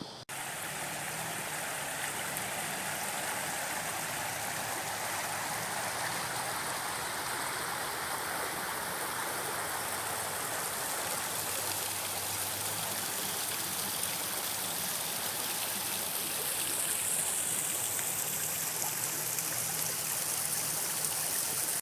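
Water rushing steadily over the Lane Cove River weir, a constant, even flow.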